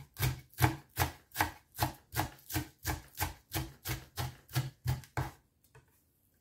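Kitchen knife chopping green onion on a wooden cutting board: steady, evenly spaced knocks of the blade on the board, about three a second, stopping about five seconds in.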